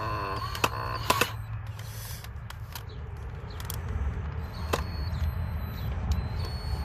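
Black & Decker 18V cordless drill driving a screw, whining briefly with a wavering pitch in the first second or so, followed by a few sharp clicks. A steady low rumble runs underneath.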